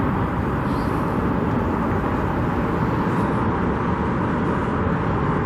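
Steady road-traffic noise, an even rumble with no single vehicle standing out.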